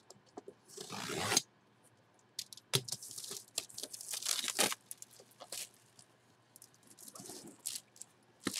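Clear plastic shrink-wrap being slit and torn off a cardboard box: irregular bursts of ripping and crinkling plastic with short pauses between them.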